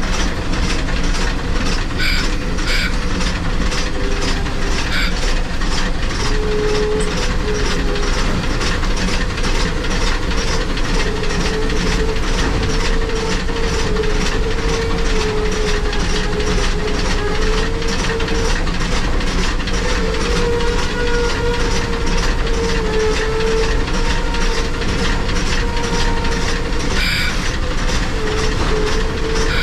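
Shay geared steam locomotive working along the line, heard from the cab: a quick, even beat of exhaust chuffs with the clatter of the running gear. A wavering squeal comes and goes over it and runs through most of the second half.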